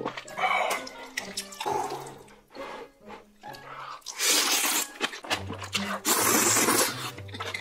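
A man slurping a mouthful of spicy ramen noodles off chopsticks: two long, loud slurps, about four seconds in and again about six seconds in, with smaller slurping sounds before them. Soft background music plays underneath.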